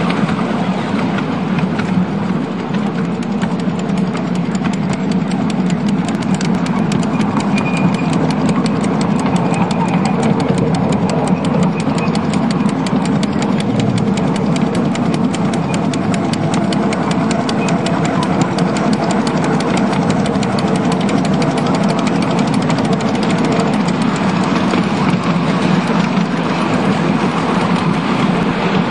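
Seven-and-a-quarter-inch gauge miniature steam train, hauled by a single Fairlie steam locomotive, running steadily along the track. A fast, even patter of clicks sits over a steady low rumble.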